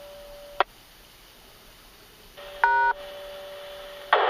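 Amateur radio audio over an EchoLink connection: a sharp squelch click, then a short loud multi-tone beep like a DTMF tone about two-thirds of a second long midway, and a brief burst of static near the end, all over a faint steady hum.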